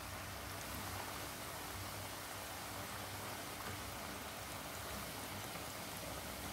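Flour-coated chicken pieces deep-frying in a pot of hot oil, sizzling steadily.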